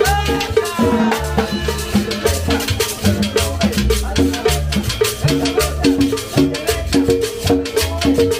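Salsa-style Latin dance music from a live street combo: percussion keeping a fast, steady beat over a stepping bass line.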